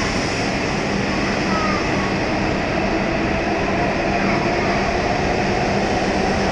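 E7-series Shinkansen trainset running at the platform, most likely pulling out, with a steady hum and a motor whine that comes in about halfway through.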